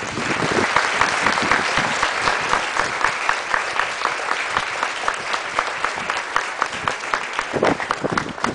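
An audience applauding, many hands clapping together. The clapping is dense at first and thins toward the end to fewer, more separate claps.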